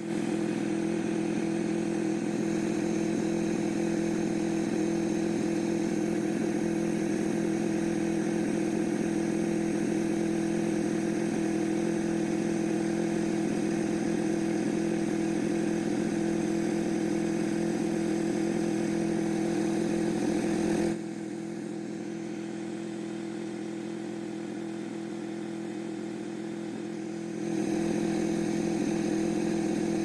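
Snowmobile engine idling steadily. It turns quieter for about seven seconds about two-thirds of the way through, then comes back up to its earlier level.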